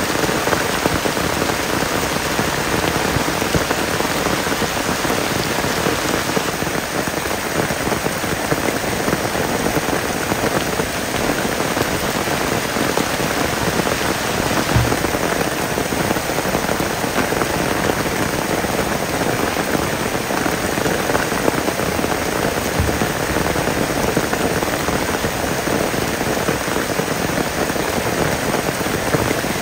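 Heavy rain falling steadily, an even dense hiss of drops with no let-up.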